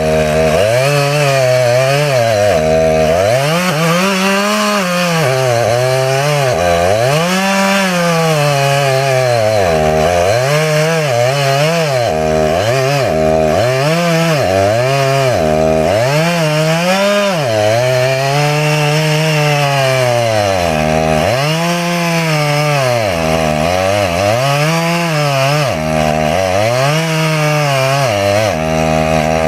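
Two-stroke chainsaw running hard while cutting a dead tree, its engine pitch rising and falling over and over, every second or two, as it is throttled and loaded in the cut.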